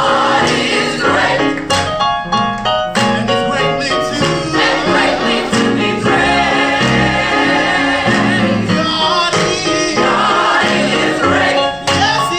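Gospel choir singing over instrumental accompaniment.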